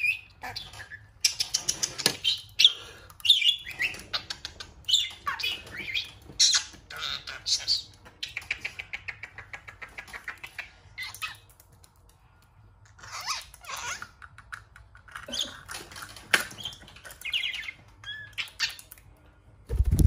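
Budgerigar chattering and warbling in short high chirps, with runs of rapid clicks, while it pecks at a small plastic figure. Just before the end, a loud low thump as the bird's wings come right up to the microphone.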